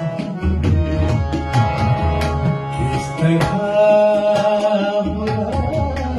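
Ghazal music: a tabla keeping a brisk rhythm, its bass drum strokes bending in pitch, over the steady notes of a harmonium. A male voice holds a long wavering note in the middle.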